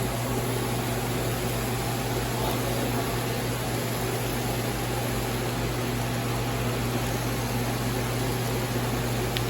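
Steady hiss over a constant low hum, unchanging throughout.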